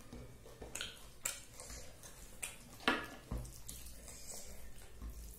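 Fingers mixing rice with dal and curry on a plate, heard close up: soft wet squelches and several short taps of fingers on the plate, the sharpest about three seconds in.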